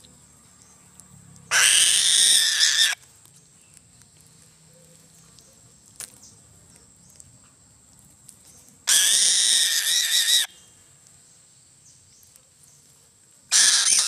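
A bird of prey gives three loud, drawn-out screaming calls, each about a second and a half long: one about a second and a half in, one about nine seconds in, and the last starting near the end.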